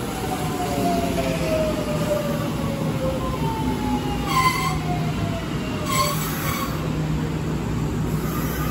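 Kintetsu electric express train pulling in and slowing beside the platform: a low rolling rumble with a whine that falls in pitch as it decelerates, and two short squeals as it brakes, about four and six seconds in.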